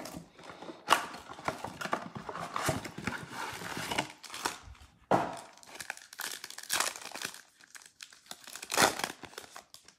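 Foil trading-card packs crinkling as they are pulled from a cardboard blaster box and one is torn open. Sharper crackles come about a second in, about five seconds in and near nine seconds.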